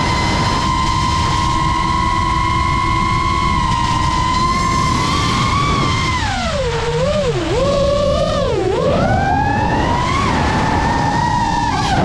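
GEPRC Mark5 FPV quadcopter's motors and propellers whining at a steady pitch over a low rush of air. About halfway the pitch drops sharply and swoops up and down twice as the throttle is chopped and pushed back in through turns, then it settles back to the steady whine.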